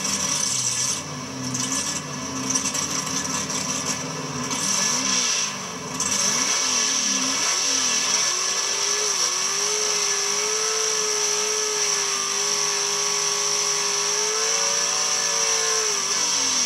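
Drag race car's engine running, heard through in-car camera audio with heavy hiss. The engine note sweeps up and down a few times about five seconds in. From about eight seconds until near the end, a steady whine holds.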